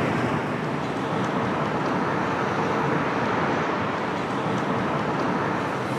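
Steady street traffic noise: a continuous rush of passing road vehicles.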